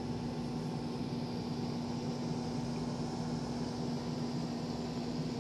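Steady mechanical room hum from an appliance, with one constant low tone over an even hiss.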